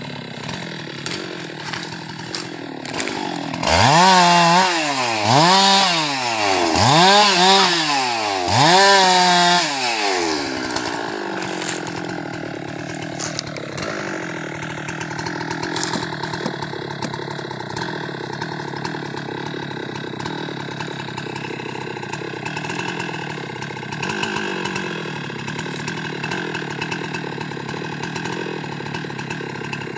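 Husqvarna 390XP two-stroke chainsaw revved up and down four times in quick succession, a few seconds in, the pitch rising and falling each time, then running steadily at a lower, quieter pitch.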